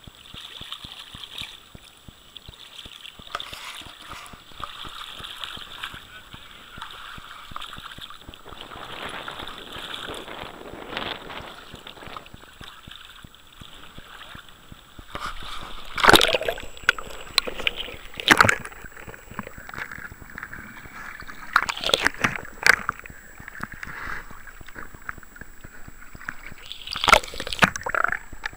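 Shallow river water running steadily. About halfway through it gets louder, with sloshing and several sharp splashes close to the microphone.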